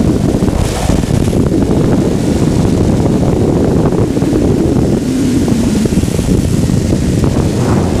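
Wind rushing and buffeting over the microphone of a light aircraft in flight, a loud, steady, low rumble.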